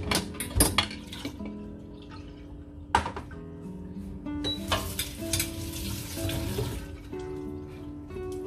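Dishes being handled over background music: a few light knocks, then a sharp knock about three seconds in as a ceramic bowl is set down on a plastic cutting board. A hissing noise follows for about two and a half seconds.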